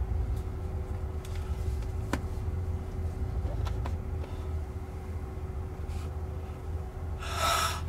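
Steady low rumble of cabin noise inside a stopped electric Waymo Jaguar I-Pace waiting at a red light, with a faint steady hum, a few small clicks, and a brief hiss near the end.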